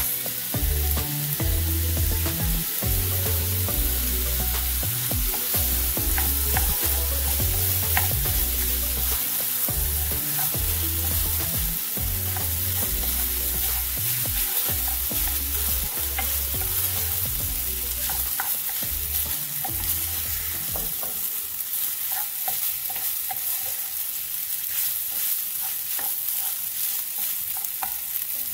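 Rice frying and sizzling in hot oil in a pot as it is stirred, with frequent scrapes and ticks of the utensil against the pot, just after soy sauce has gone in.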